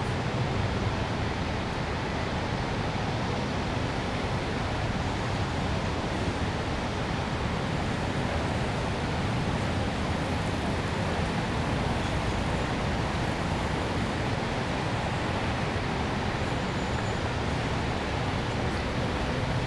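Steady urban ambience: a continuous wash of road traffic noise with a low hum, even throughout.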